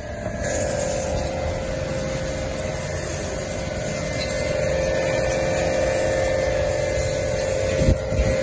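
High-pressure washer running: a steady hum with one constant tone over a noisy hiss, and a short knock near the end.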